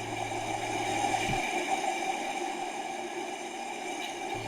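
Steady background hiss with a faint electrical whine and a low hum; no speech. The low hum drops out about a second and a half in and comes back near the end.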